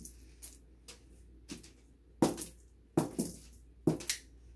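Cat wand toy on a string swinging and being batted against the door and tile floor: a run of about eight sharp, irregular clicks and clinks, several in quick pairs.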